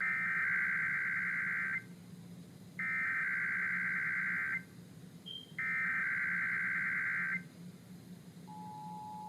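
Emergency Alert System SAME header on a radio broadcast: three identical bursts of shrill digital data tones, each just under two seconds and about a second apart, sent at the start of a Required Monthly Test. Near the end the steady two-tone EAS attention signal begins.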